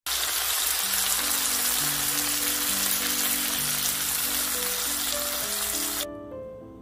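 Mackerel fillets in a spicy gochujang glaze sizzling loudly in a frying pan, a steady crackling hiss that cuts off suddenly about six seconds in. Piano music plays underneath throughout.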